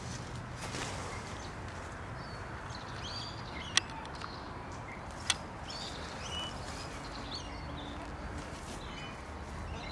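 Small birds chirping now and then over steady outdoor background noise, with two sharp clicks about a second and a half apart near the middle.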